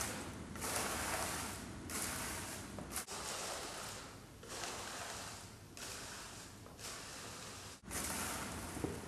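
Twig besom broom sweeping a floor: a run of swishing strokes, roughly one a second.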